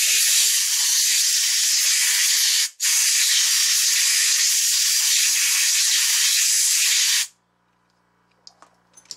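Air hissing steadily from a handheld nozzle, cut off for a moment about two and a half seconds in, then stopping abruptly about seven seconds in.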